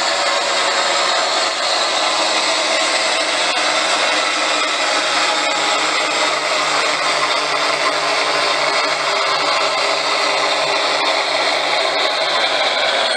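ESU V200 model locomotive's sound decoder playing its diesel engine sound through the model's small loudspeaker, a steady, noisy engine run as the locomotive drives under throttle.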